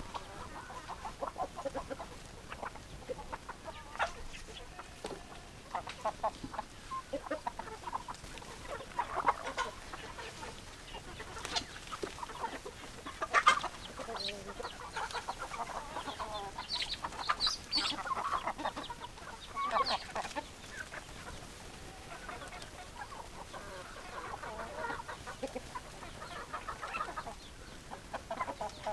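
A flock of chickens clucking: many short, overlapping hen calls at an irregular pace, coming thicker around the middle.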